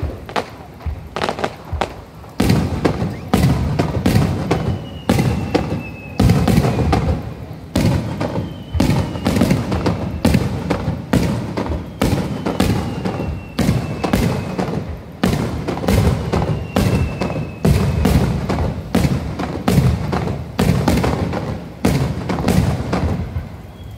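Aerial firework shells bursting in quick succession, sharp bangs about two a second, each followed by a low rumbling tail; the barrage grows louder a couple of seconds in.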